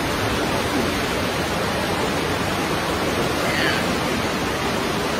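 Loud, steady rushing of whitewater rapids on a rocky river, an even wash of water noise that does not change.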